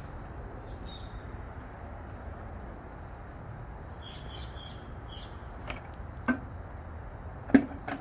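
A plastic garden bucket with a tool in it is set down and handled on the paving, giving a few sharp knocks near the end, the loudest just before the end. Under it is a steady outdoor hush, with a few short high bird chirps about halfway.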